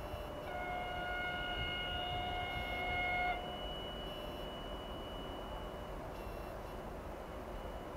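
TEP70 diesel locomotive sounding its horn in one long steady blast of about three seconds, starting about half a second in, as its passenger train approaches. A low rumble from the approaching train runs underneath.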